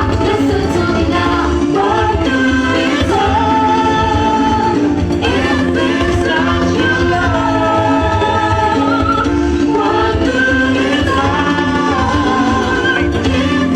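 A Latin-flavoured song with singing over a steady beat.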